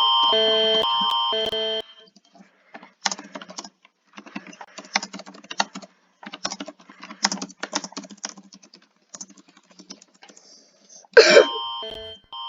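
A pulsing electronic alarm tone, several steady pitches beeping on and off a few times a second, cuts off about two seconds in. Computer keyboard typing follows in irregular bursts of clicks. Near the end there is a short loud burst, and the pulsing alarm tone starts again.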